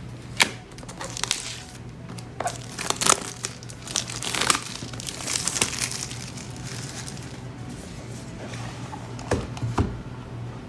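Plastic shrink-wrap on a phone box crinkling and tearing as it is peeled off, in a string of sharp crackles over the first six seconds. Near the end come two knocks as the cardboard box is set down and handled.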